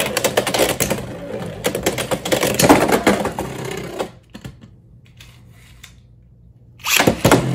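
Beyblade X spinning tops (Dran Buster 1-60F and Leon Crest 7-60GN) clashing and rattling against each other and the clear plastic stadium, a fast dense run of clicks for about four seconds. It then goes quiet with a faint hum, and a short loud burst of clatter comes about seven seconds in.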